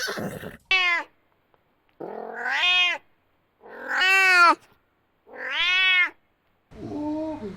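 Domestic cat meowing four times, each meow rising then falling in pitch, the first one short. The tail of a horse's whinny fades out at the very start, and a different, lower, choppy sound begins near the end.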